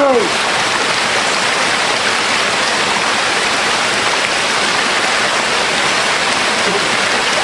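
Waterfall rushing close by: a steady, unbroken hiss of falling water.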